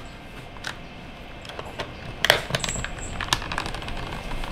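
A few sharp plastic clicks and scrapes spread through, from a switch puller working on a stiff mechanical keyboard switch whose soft plastic housing is crumbling as it is pried out.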